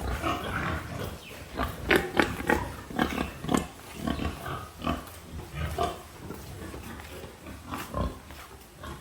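Pigs grunting and squealing in a pen, a series of short irregular calls, several sharp squeals standing out about two and three and a half seconds in.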